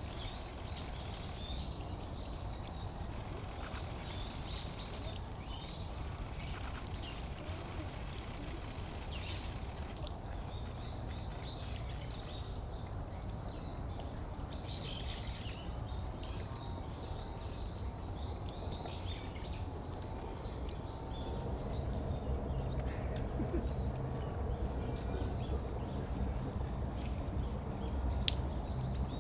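An insect trills steadily on one high note throughout, with faint short bird calls here and there and a low outdoor rumble that grows louder about two-thirds of the way in.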